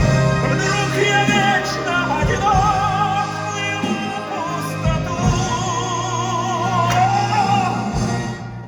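Closing bars of a musical-theatre duet: male voices holding long final notes with wide vibrato over full band accompaniment with a steady bass. The music ends near the end.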